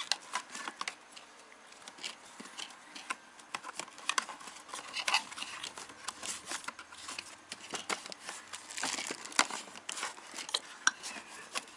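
Wiring harness and its plastic loom being handled and pushed into place by hand: irregular small clicks, crinkles and rustles of plastic and wire, busier about nine seconds in.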